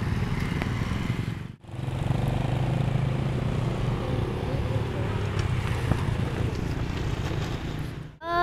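Road traffic at a level crossing: motorcycle and car engines running past as a steady low rumble. The sound drops out briefly about a second and a half in and again near the end.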